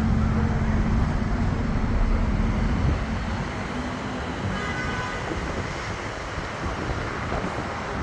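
Double-decker bus under way: its engine runs with wind and road noise rushing past. The engine note eases off about three seconds in, leaving mostly the rushing noise.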